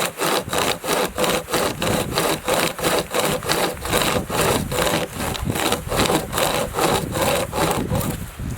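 Hand-powered saw cutting through wood in quick, even back-and-forth strokes, about three a second, stopping shortly before the end.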